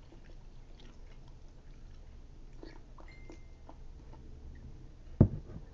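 Faint sipping and mouth sounds from drinking hot coffee out of a mug, then a single sharp knock about five seconds in as the mug is set down on the table.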